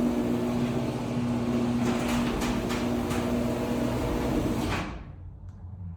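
Electric garage door opener running as the door travels down, a steady motor hum with a few knocks from the door and rails. It stops abruptly about five seconds in as the door closes.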